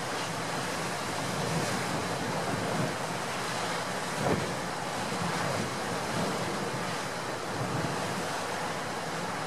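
Heavy storm surf breaking on rocks, a steady rushing wash of waves, with gale-force wind buffeting the microphone and a brief louder gust about four seconds in.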